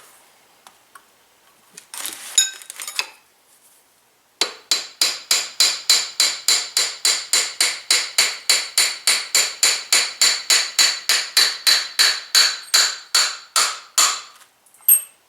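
Rapid, even metal-on-metal hammer tapping, about three strikes a second for some ten seconds, each strike ringing, during the coilover shock rebuild. A brief clatter comes a couple of seconds before the tapping starts.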